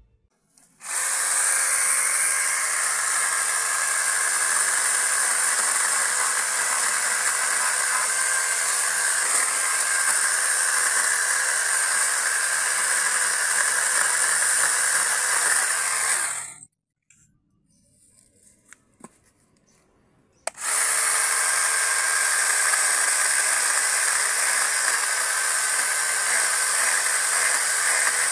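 Kamolee 8-inch brushless mini chainsaw running flat out, cutting bamboo, with a steady high-pitched whine. About halfway through it stops for roughly four seconds, leaving a few faint clicks, then starts again.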